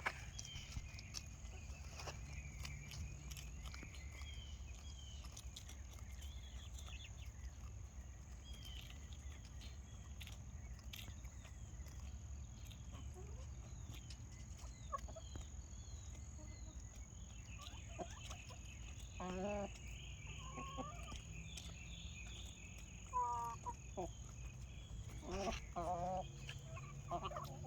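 Backyard chickens clucking and calling, with several short calls in the second half, over a steady low background rumble.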